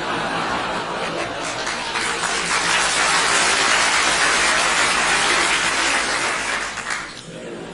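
Studio audience laughing together with applause. The laughter builds to a peak, then dies down sharply about seven seconds in.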